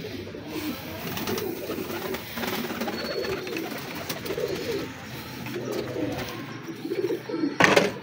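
Domestic pigeons cooing repeatedly, low and warbling, with a brief sharp noise near the end.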